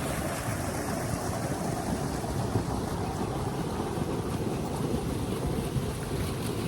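Small woodland brook running over rocks: a steady rush of flowing water.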